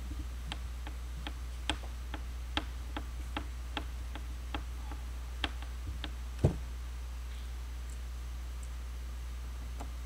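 Small screwdriver clicking and turning against a screw as it is driven back into the bottom case of a Panasonic Toughbook CF-30 laptop. The light, irregular clicks come about two a second and end in a louder knock about six and a half seconds in, all over a low steady hum.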